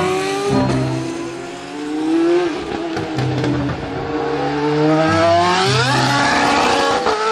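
Open-wheel single-seater race car's engine revving as the car drives through a corner and past, its pitch dipping early on and then climbing steeply before dropping back near the end.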